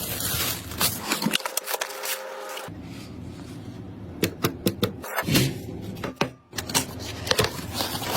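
Clicks, knocks and scrapes of computer parts being handled and fitted during a PC build, over a low hum. The background changes abruptly several times, as at edit cuts.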